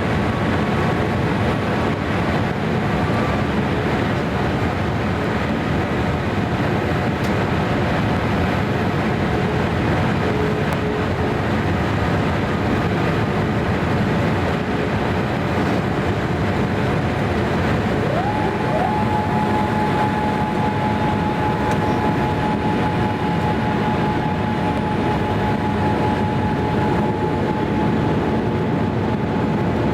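Steady cabin noise of a Boeing 787-8 Dreamliner in flight: engine and airflow noise. About two-thirds of the way through, a whine rises quickly in pitch and then holds steady.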